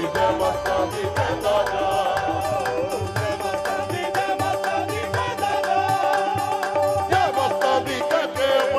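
Punjabi Sufi devotional music: tabla playing a fast, steady beat under a wavering melody line.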